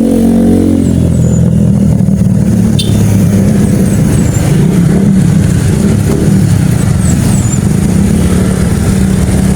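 Loud, steady low engine drone from a large motor running, with a brief shift in pitch near the start and faint high chirps that drop in pitch, heard now and then over it.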